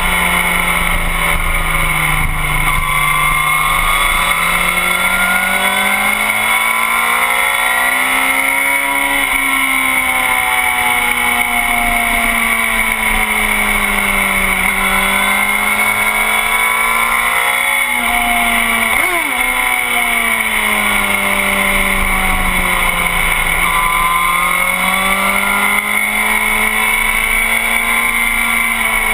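Motorcycle ridden hard on a racetrack, its drive note rising and falling smoothly over a few seconds at a time, with a quick rise and fall about two-thirds of the way through. Steady wind rush on the microphone runs under it.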